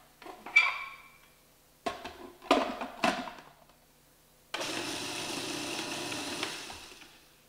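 A few short plastic knocks and clatters, then a small electric food processor runs for about two and a half seconds, blending flour and dark brown sugar, starting suddenly and winding down to a stop near the end.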